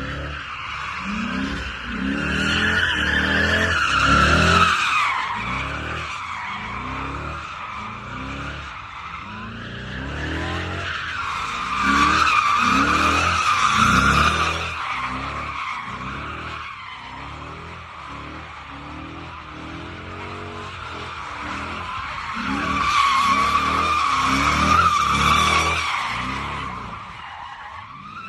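Car tires squealing in long slides while the engine revs up and down over and over. The squeal swells to a loud peak three times: early on, in the middle and near the end.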